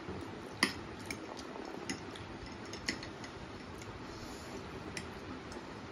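Metal forks clinking and scraping against plates of noodles: four short sharp clinks in the first three seconds, the first the loudest, over a steady low hiss.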